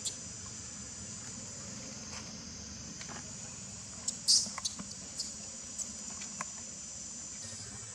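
Steady high-pitched insect chorus, likely crickets or cicadas, with a scattered handful of short crackles and ticks; the loudest comes about four seconds in.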